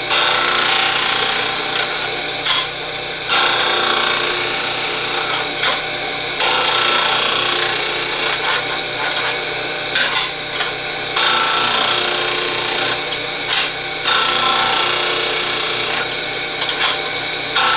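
12-inch disc sander running steadily while wood is pressed against the spinning disc to chamfer its edges: stretches of grinding a few seconds long, broken by short knocks as the workpiece is repositioned in the chamfer jig.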